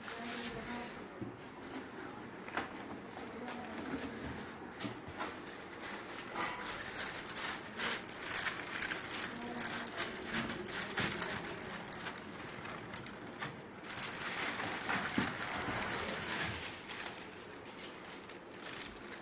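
Plastic wrapping and packaging rustling and crinkling, with scattered knocks, as speaker units are handled out of their carton.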